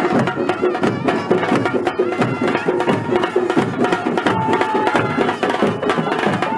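Folk drum troupe playing fast, loud drumming on large barrel drums beaten with sticks, with a wind instrument holding long notes over the beat.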